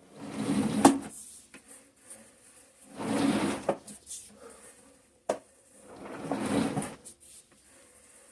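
A person breathing heavily close to the microphone: three long, noisy breaths about three seconds apart, each swelling and fading, with a sharp click about five seconds in.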